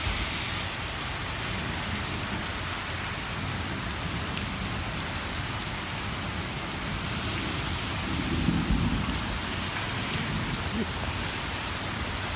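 Steady rain falling on hard surfaces during a thunderstorm, with a short low rumble of thunder about eight seconds in.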